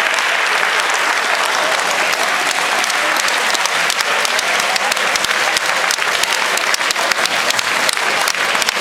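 A large seated audience applauding, a dense steady patter of many hands clapping, with single claps standing out more clearly in the second half.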